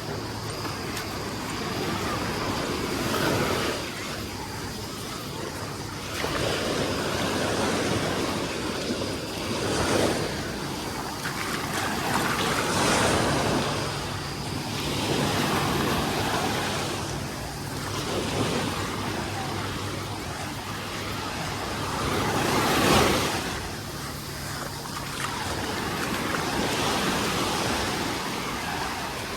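Small sea waves breaking and washing up the beach, swelling and fading every few seconds, the biggest about three-quarters of the way through, with some wind on the microphone.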